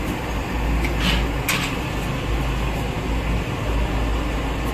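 Steady low rumble of background noise, with two brief paper rustles a little past a second in as sheets of flatbread are handled on wax paper.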